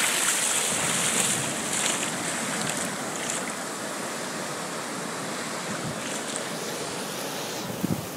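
Shallow surf washing in and around, loudest in the first second or so and then a steady wash, with wind buffeting the microphone. There is a short low bump near the end.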